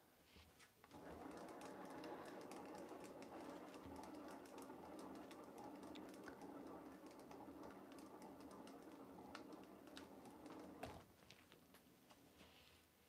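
Paint-pouring canvas spinner turning, a quiet steady whirr that starts about a second in and stops after about ten seconds. A patter of small ticks runs over it as paint flung off the spinning canvas spatters onto the table.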